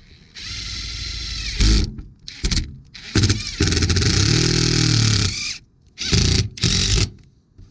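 Cordless Milwaukee impact driver running in several bursts as it drives screws through a vent boot's metal flange into a metal roof. The longest run is about two seconds in the middle, and short bursts come near the end.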